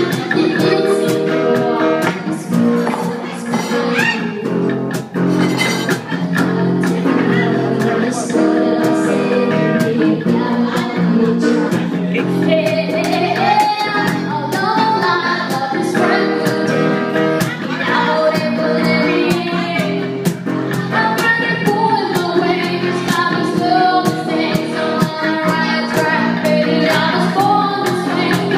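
Live band playing a song with a lead vocal over guitar, with regular drum and cymbal hits.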